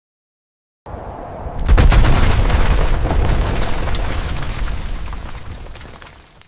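Building-collapse explosion sound effect: about a second in a sudden low rumble starts, a heavy blast hits just under a second later, and dense crackling of crashing debris follows, slowly dying away.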